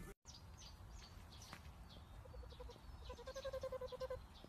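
Goat bleating, a short bleat followed by a longer one with a fast quaver, against faint high chirps.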